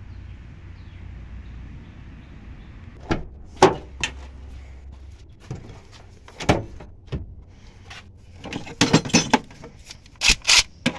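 Hard plastic cordless tools and battery packs knocking and clattering as they are rummaged through and lifted out of a tool bin, a string of sharp knocks starting about three seconds in, over a low steady rumble.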